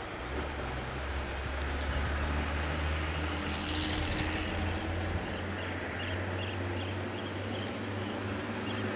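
A vehicle engine running at idle, a steady low hum that rises slightly in pitch about halfway through.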